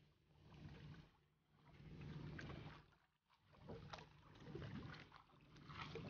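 Near silence with faint water sloshing around a small wooden outrigger boat, swelling and fading about every second and a half.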